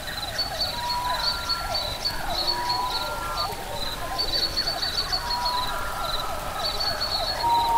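Tropical nature soundscape of whistled bird calls, a run of short repeated swooping calls and a pulsing high-pitched insect chirp.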